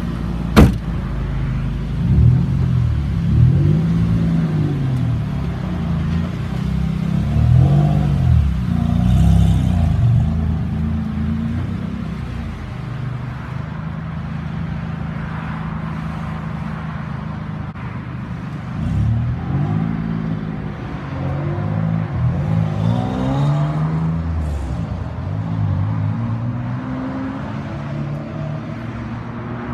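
WaterCar amphibious vehicle's engine driving on land, revving up and falling back again and again as it accelerates and slows, with a steadier stretch in the middle. A single sharp knock sounds about half a second in.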